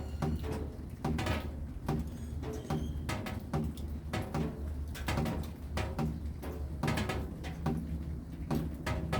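Raindrops falling in irregular taps, two or three a second, each with a short ringing tail, over a steady low hum.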